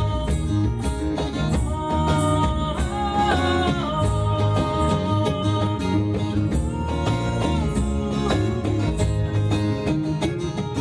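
Live folk band playing: strummed acoustic guitar over electric bass, with a bodhrán beating time.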